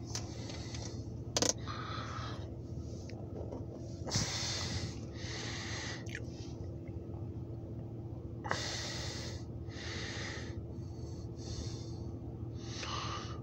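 Breathing close to the microphone: a series of hissy inhales and exhales, each about a second long and often in pairs, over a steady low hum. There is a short click about a second and a half in.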